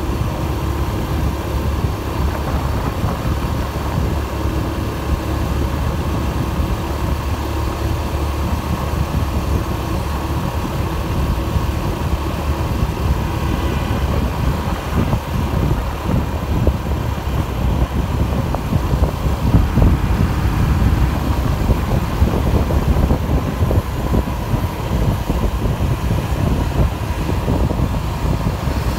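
Steady low rumble of road traffic and a moving vehicle on a city street.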